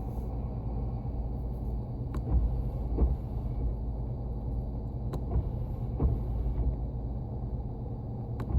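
Jeep engine idling steadily, with a few light clicks at uneven intervals.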